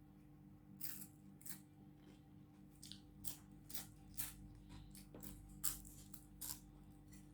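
Crisp crackling from eating wafer-thin, crispy rugag bread: about ten short, sharp crunches at irregular intervals, over a faint steady hum.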